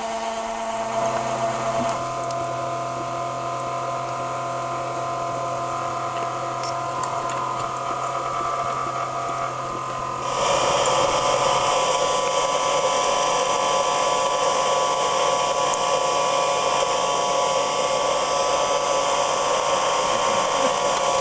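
Electric steam-raising blower whirring steadily, drawing the coal fire up through a miniature steam locomotive's firebox while it is being lit up. About halfway through the whir gets louder and higher, and it stops abruptly at the end.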